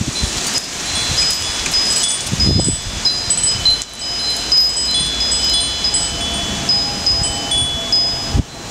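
Chimes ringing irregularly: many short, high, clear tones at scattered pitches overlapping one another over a steady hiss, with brief low rumbles about two and a half seconds in and again near the end.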